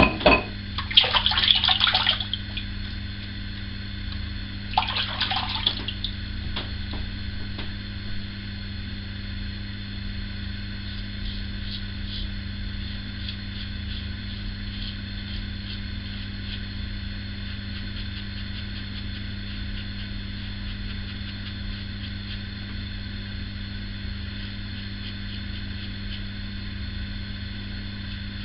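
Water splashing in two short bursts near the start, about four seconds apart, then a steady low hum with faint strokes of a single-edge injector razor scraping through lathered stubble.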